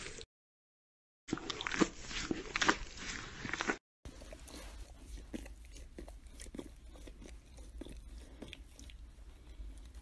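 Dogs licking a person's face and mouth: a quick run of wet, smacking licks. The later licks come from a boxer. The sound stops dead for about a second near the start, then comes back.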